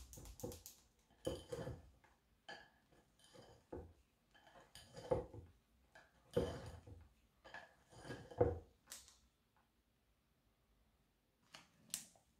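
Wire whisk scraping and knocking against a glass mixing bowl as it folds chocolate into whipped cream, in slow, irregular strokes that stop about nine seconds in. A couple of short sharp knocks near the end.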